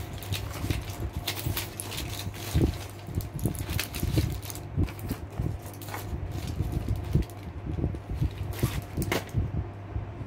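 Electric fan running with a steady hum, under irregular clicks and knocks of small objects being handled.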